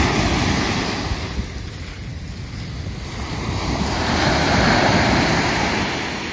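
Sea surf breaking and washing up a sandy beach, swelling twice and fading, with wind buffeting the microphone.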